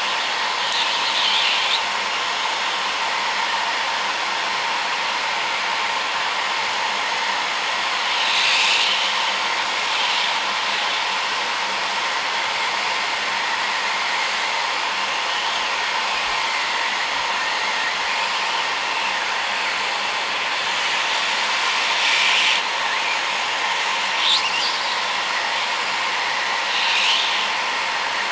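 Heat gun blowing hot air steadily onto an LED bulb's circuit board to soften the solder and free an LED. A few brief higher-pitched sounds rise over the steady noise.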